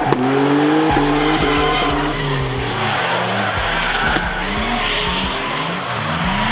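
Two drift cars on a tandem run: engines revving hard, their pitch climbing and dropping again and again, over the steady hiss of tyres sliding sideways.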